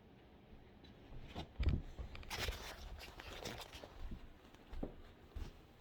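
Someone climbing down a ladder: a series of irregular soft thumps and knocks with rustling.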